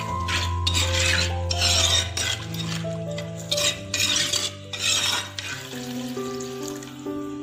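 Metal spoon stirring thick curry gravy in a pan, a series of scraping, sloshing strokes through the first five seconds or so, over background music with held notes.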